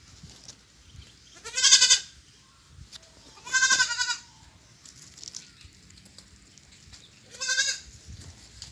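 Goat kids bleating: three loud, quavering calls, each under a second long, about a second and a half in, again near the four-second mark, and once more near the end, with quiet between.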